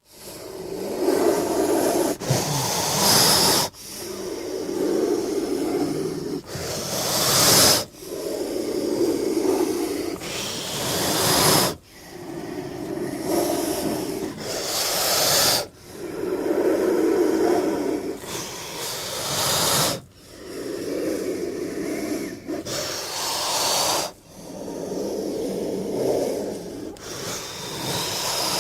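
King cobra hissing in repeated breaths, about one every four seconds: each is a low, rasping hiss that ends in a sharper, brighter hiss and cuts off suddenly.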